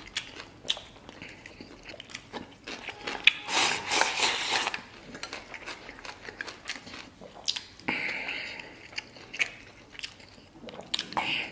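Close-up eating sounds: chewing and smacking on a mouthful of braised beef and rice, with many small clicks of wooden chopsticks against a metal bowl. A louder stretch of noise comes about four seconds in, and a shorter one near eight seconds.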